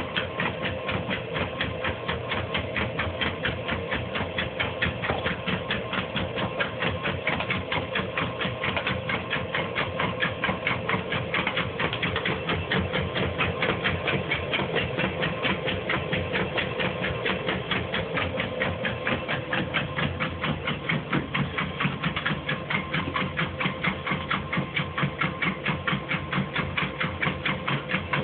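Motorized dog treadmill running with a pit bull trotting on it: a steady motor whine under rhythmic tapping, about three taps a second.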